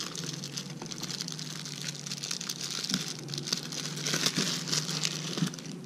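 Thin clear plastic bag crinkling and rustling as hands work it open to take out a coiled microphone cable, with many small crackles and a few louder crinkles near the end.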